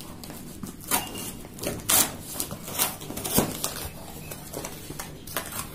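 Cardboard shipping box being handled and opened by hand: irregular scrapes and crinkles of cardboard and packaging, with sharper ones about one, two and three and a half seconds in.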